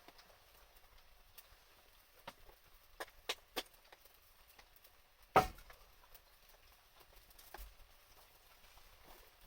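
Wood fire crackling with scattered sharp pops: three small pops a little past the middle and one loud pop about five and a half seconds in.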